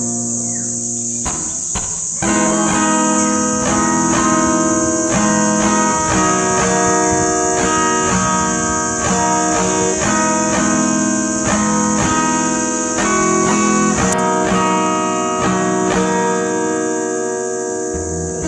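Background music on acoustic guitar, plucked notes in a steady rhythm, over a continuous high-pitched hiss.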